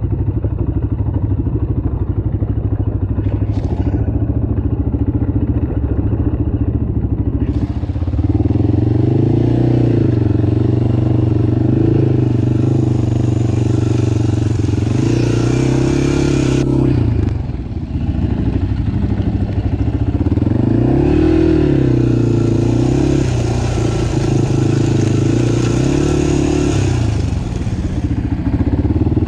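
Off-road vehicle engine running under throttle, its note rising and falling as the throttle is worked, easing off briefly about halfway through, with some rattling clatter and a sharp click early on.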